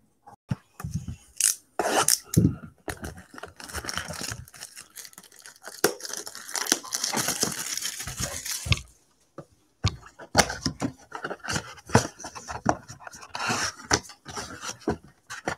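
Cardboard trading-card box being torn open by hand: a long ripping of card stock midway and a shorter one near the end, among sharp knocks and taps as the box is tipped and handled on the table.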